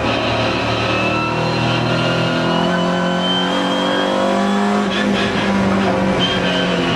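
Alfa Romeo 145 cup car's engine heard from inside the cabin while lapping a circuit, its note rising steadily in pitch under acceleration through the first five seconds before it changes.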